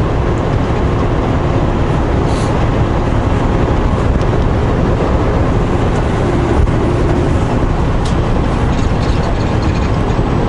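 Semi truck driving at highway speed, with a steady low engine and road rumble.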